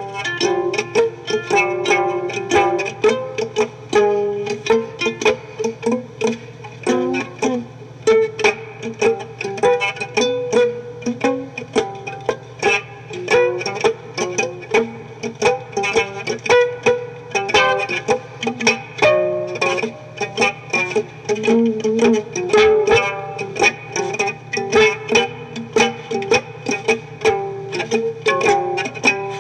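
Instrumental music from a song with no singing: a plucked string instrument picks a quick run of notes over a steady low backing.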